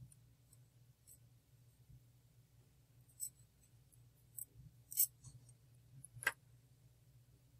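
Faint, scattered small clicks and light scrapes of ceramic tweezers against the dual coils of an Aspire Nautilus coil head as the top coil is prised off the bottom one to clear a short. A single sharper click comes a little after six seconds in.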